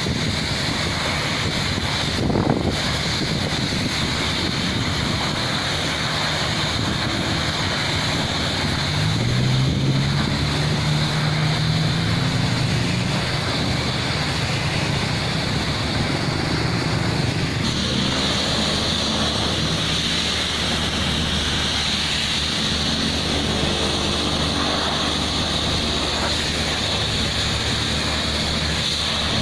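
Compressed air hissing steadily from a hand-held air lance, blowing dust and loose gravel out of a pothole being prepared for asphalt patching, with the air compressor's engine running beneath it. The hiss grows brighter a little over halfway through.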